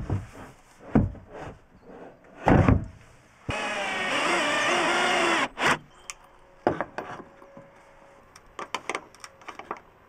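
Knocks and thuds as a plastic water tank and wooden parts are handled and set in place, then a power tool runs for about two seconds, its pitch wavering, starting and stopping abruptly. Light clicks and taps of small fittings being handled follow.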